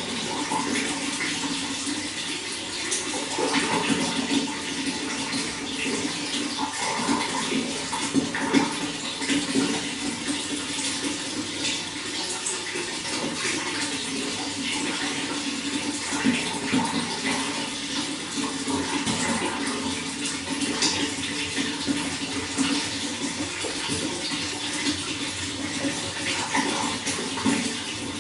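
Running water flowing steadily, a continuous rushing with many small splashes.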